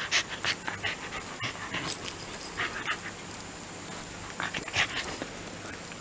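Shiba Inu panting in short, irregular breathy bursts.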